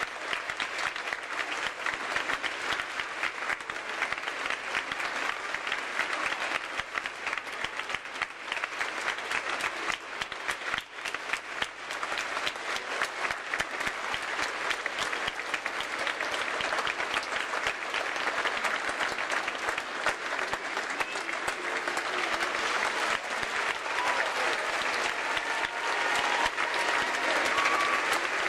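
Large audience applauding steadily, a dense crackle of many hands clapping that swells a little toward the end, with a few faint brief calls near the end.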